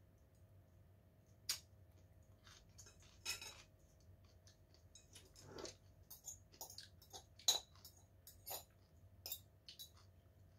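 Faint, irregular clinks and scrapes of a metal fork against a ceramic bowl during eating, the clicks coming more often in the second half and the sharpest about seven and a half seconds in.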